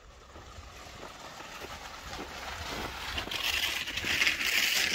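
Cross-country skis scraping and hissing over packed snow as a skier glides closer, growing louder to a peak near the end.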